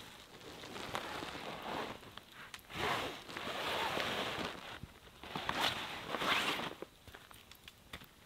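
Heavy canvas shelter sheet rustling and swishing in three long swells as it is lifted off its pole and let down, with a few faint clicks in the quieter last second.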